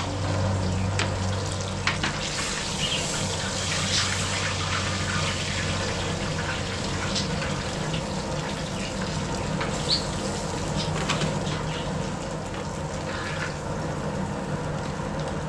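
Slices of striped bass frying on a hot round steel griddle in a steady sizzle, with a few short clicks of metal tongs against the griddle.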